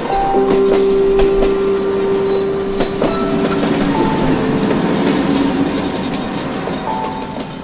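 Passenger train rolling past with wheel clatter, under background music of long held chords that change about halfway through, with short higher notes on top.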